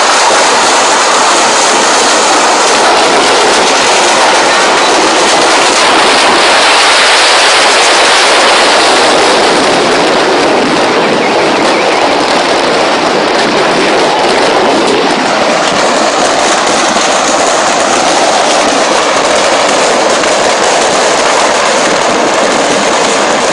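A stock of fireworks burning in a shop fire, going off as a loud, dense, continuous crackle of firecracker bangs.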